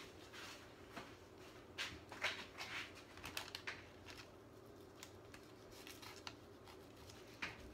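A kitchen knife sawing through a nori-wrapped sushi roll on a silicone mat: faint, irregular rasps and taps, over a low steady hum.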